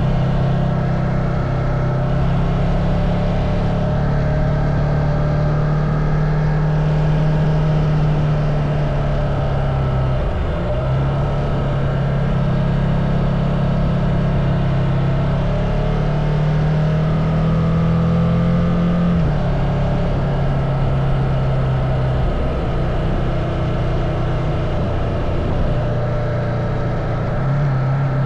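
Ducati Multistrada motorcycle engine running continuously, with its note stepping down and back up several times as the throttle and engine speed change.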